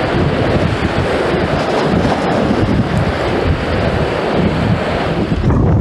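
Wind buffeting the microphone over the steady wash of rough sea surf.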